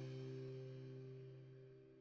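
Background music ending on a held chord that dies away, fading to near silence about a second and a half in.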